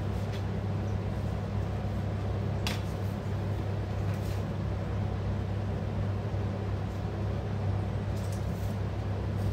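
Steady fan-like hum with a low drone. A few faint short clicks, about three seconds, four seconds and eight seconds in.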